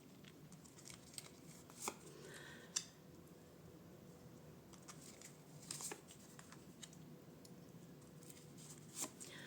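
Tarot cards being handled in a quiet room: a few short, soft card snaps and slaps as the deck is shuffled and cards are drawn.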